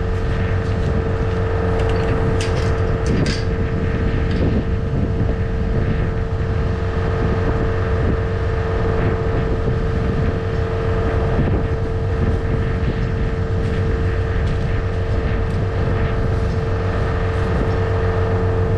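A vehicle engine running steadily: a constant low drone with a steady whining tone over it, and a few light knocks a few seconds in.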